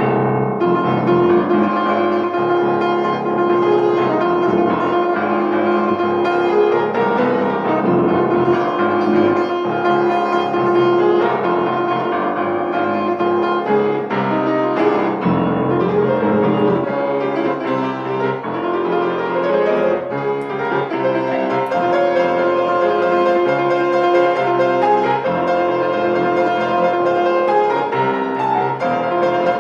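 Solo piano playing a pop-song arrangement, melody and chords going on without a break.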